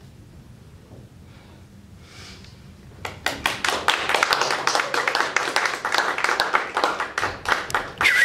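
Audience applause: quiet at first, then dense hand clapping breaks out about three seconds in as the performers bow, with a brief loud high cry just before it cuts off suddenly.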